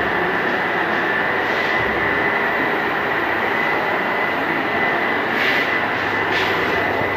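UPS inverter, just switched back on after a battery change, running: a steady, even mechanical noise with a constant high-pitched whine.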